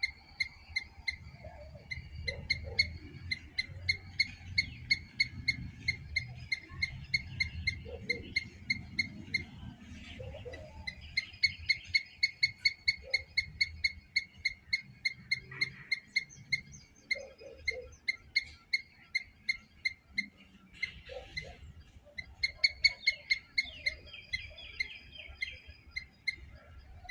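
Squirrel chirping: rapid, evenly repeated short high chirps at about four or five a second, in long runs broken by two short pauses.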